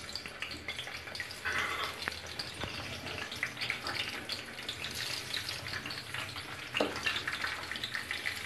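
Eggplant slices frying in hot oil in a pan, a steady crackling sizzle. It swells briefly twice, about a second and a half in and near the end, as more slices are laid into the oil.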